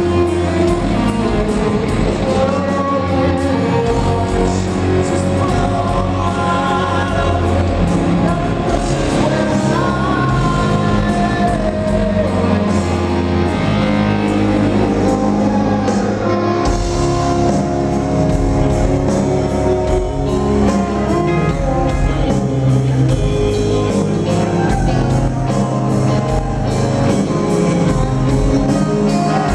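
Live rock band playing electric guitars, bass and drums with a singer, loud and steady, heard from the audience in a hall.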